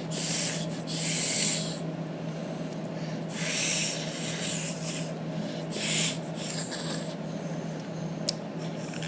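Several short breathy hissing bursts with no note, typical of air blown through a flattened plastic drinking-straw reed that fails to sound; the straw has been cut too much. A steady low hum runs underneath.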